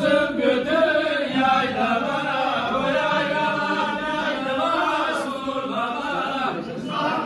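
A group of men singing a Turkish folk song (türkü) together in unison, the song that carries a bar line dance.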